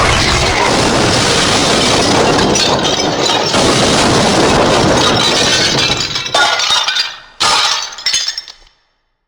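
Long cartoon crash sound effect of glass shattering and debris clattering, loud and continuous for about six seconds. A few separate shorter crashes follow, then it cuts to silence near the end.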